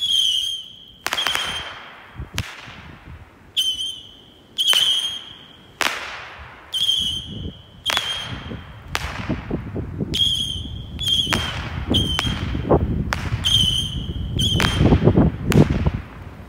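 Cutting Edge Fireworks Saturn Missiles 25-shot battery firing its small whistling rockets one after another. Each shot is a short high whistle at a steady pitch, followed by a sharp bang with a trailing echo, about one a second. The shots crowd together toward the end.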